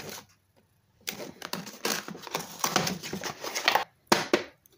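Cardboard packaging sleeve being cut and slid off a hard plastic torque-wrench case: a click, then about three seconds of scraping and rustling with small clicks, and two short scuffs near the end.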